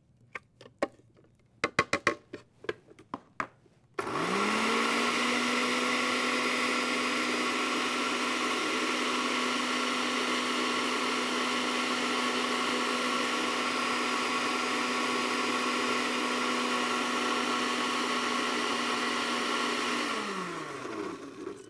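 A few plastic clicks and knocks as the lid goes onto a small electric food processor. About four seconds in, its motor spins up with a rising whine and runs steadily for about sixteen seconds, pureeing green beans and chicken with water. It winds down near the end.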